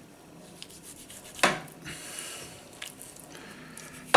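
Knife and a joint of pork handled on a wooden chopping board: quiet rubbing and a few small clicks, with one sharp knock about a second and a half in.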